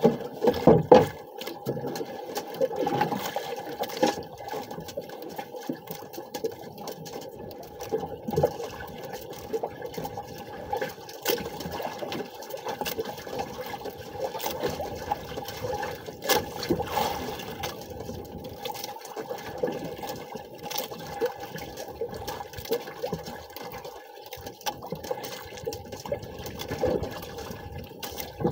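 Sea water sloshing and splashing against the hull of a small outrigger boat, with scattered knocks and rustles as a fishing handline is hauled in by hand, over a faint steady hum.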